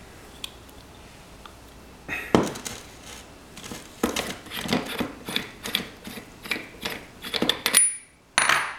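Metal clicks and clinks as an iSi cream whipper is handled and its head screwed onto the bottle, starting about two seconds in and coming in an uneven string of sharp taps.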